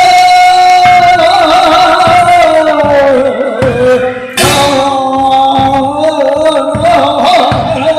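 A man singing long, wavering held notes that drift slowly in pitch, over low thumps about once a second.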